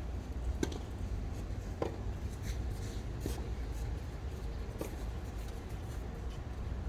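Tennis balls being struck and bouncing during a doubles rally: a few sharp pops spaced about a second or more apart, over a steady low rumble.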